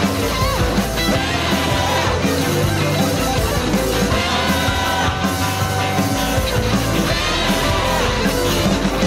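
Rock music with guitar and drums, playing as the soundtrack.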